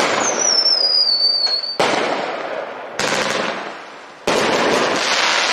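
Red Lantern Luftalarm 500-gram firework cake firing four shots a second or so apart. The first carries a shrill whistle that falls slowly in pitch for nearly two seconds. Each shot is a sharp bang followed by hissing and crackle.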